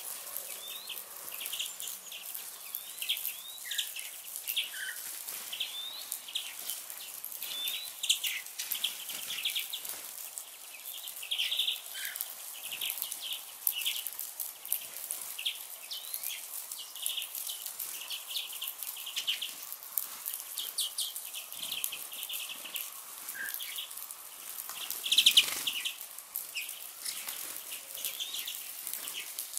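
A flock of small songbirds chirping constantly, many short high calls overlapping. One louder burst stands out near the end.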